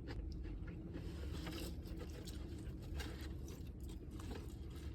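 A person chewing crispy fried chicken up close, with small irregular crunches and mouth clicks over a low hum.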